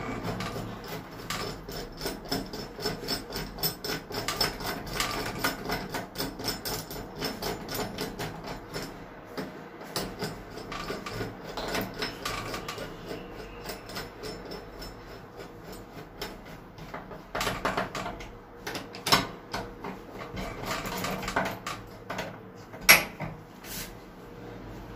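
Hand screwdriver turning the screws of a round door-knob lock's metal mounting plate into a wooden door: a stream of fast ticks and scrapes as the screws turn, with a sharp click near the end.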